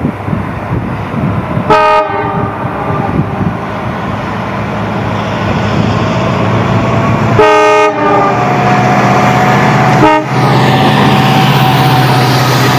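WDP4D diesel-electric locomotive, with a 16-cylinder EMD 710 two-stroke engine, sounding its multi-tone horn three times: two blasts of about half a second and a short final toot. It approaches and passes at speed, its engine drone growing louder. Near the end the coaches rush by with wheel and wind noise.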